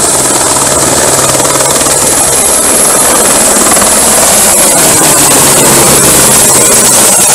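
A firefighting helicopter's rotor and turbine run loud and steady as it climbs away from the river with a full water bucket slung beneath and passes low overhead. A high steady turbine whine sits over the rotor noise, and the sound grows a little louder about halfway through as the helicopter comes overhead.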